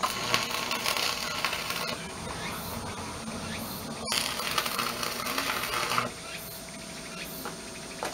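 Electric arc welding of steel rebar: the crackling sizzle of the arc. It eases around two seconds in, picks up again about four seconds in, and stops about six seconds in.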